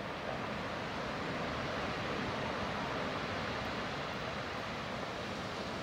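Waves breaking in a rocky cove, a steady rush of surf noise, mixed with wind.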